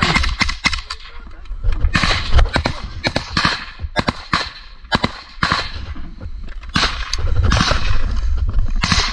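Firefight with suppressed AK-type rifles: many sharp shots and cracks at irregular intervals, the loudest cluster about two seconds in, with brush and grass rustling between them.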